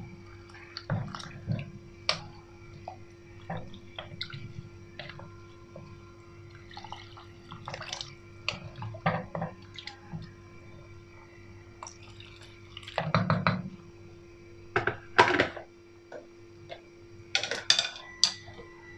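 Water pouring and splashing into a stainless steel pot of vegetable soup being stirred with a wooden spoon, with many short knocks and clatters against the pot and a few louder bursts of clatter in the second half. A faint steady hum runs underneath.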